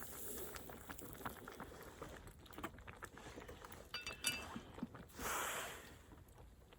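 Small clicks and knocks of camp gear being handled. About four seconds in comes a louder clink that rings briefly, and a second later a short rush of noise.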